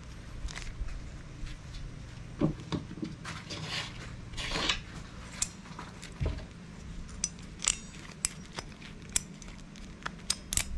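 Irregular metallic clinks, taps and short scrapes of hand tools and small metal parts being handled during work on a TL43 brush cutter's clutch.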